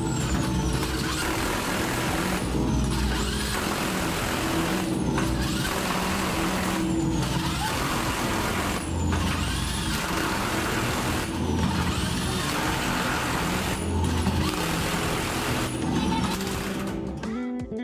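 Heavy-duty impact wrench hammering as it tightens the nuts on the bolted splice plate of a steel bridge girder, moving from nut to nut in runs of about two seconds with short breaks between.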